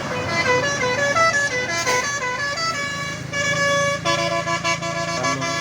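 A bus's 'telolet basuri' musical horn playing a quick tune of short, stepped notes.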